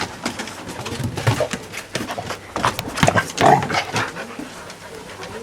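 Dogs at rough play: irregular grunting, snorting vocal noises with scuffling clicks, loudest about three and a half seconds in.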